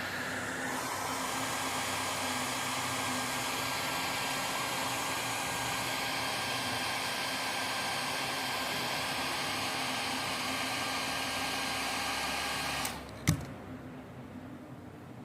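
Handheld hot-air blower running steadily, switched off near the end, followed by a single sharp click.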